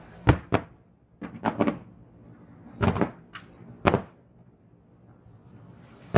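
Fireworks shells bursting in a quick irregular series of sharp bangs, about eight in all, some in tight clusters of two or three.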